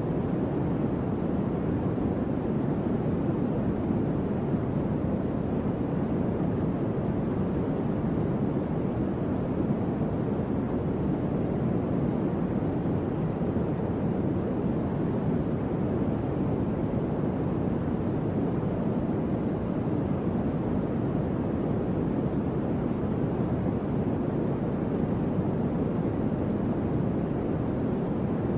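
Electric fan running steadily: a constant low whooshing air noise with no tones, clicks or changes.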